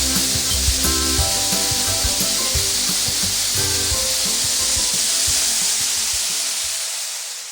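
Background music with a beat, over a loud steady hiss from a combine harvester at work; both fade out about seven seconds in.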